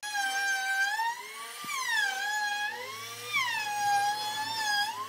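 Compact trim router running at high speed as it routs a circular groove in a pine board on a circle-cutting jig. Its high whine sags in pitch as the bit takes load in the cut and climbs back as it frees, several times over.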